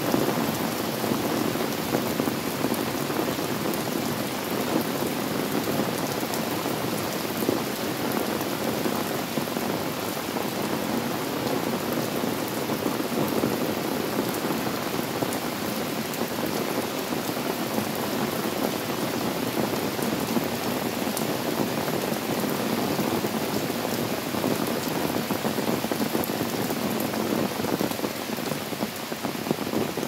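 Steady rain falling on wet paving and garden plants, an even hiss that keeps on without pause.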